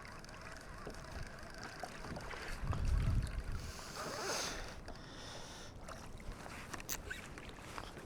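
Sea water lapping and swishing around a fishing kayak, with a gust of wind on the microphone about three seconds in and a few small clicks and knocks near the end.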